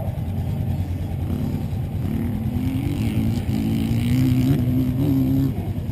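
Dirt bike engine running, its pitch climbing in small steps for a few seconds over a steady low engine hum.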